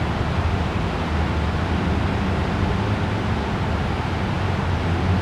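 Citroën Saxo 1.6 8V four-cylinder petrol engine idling steadily through its exhaust, a low even drone.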